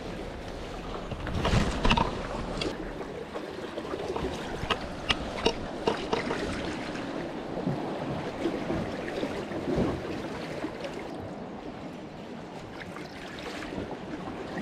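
Seawater lapping and sloshing among concrete breakwater tetrapods, with a few knocks and sharp clicks: a louder knock about two seconds in and three quick clicks around five seconds.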